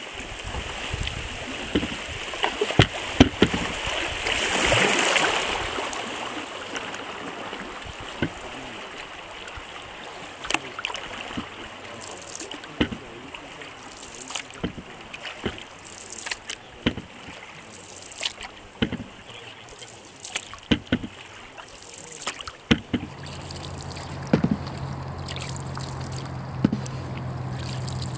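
Open canoe being paddled: a wooden paddle dips and splashes, with short knocks against the hull at irregular intervals over a steady rush of river water. About four to six seconds in, the rushing water swells louder for a couple of seconds. Near the end a low steady hum comes in under the strokes.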